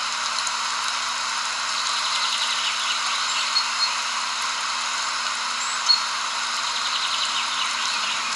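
Nature ambience: a dense, steady chorus of calling insects, with pulsing trills coming and going and a few short, high chirps over it.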